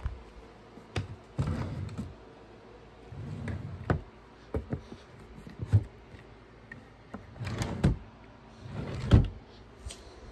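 A series of irregular knocks and thumps with rustling in between, the loudest thump about nine seconds in.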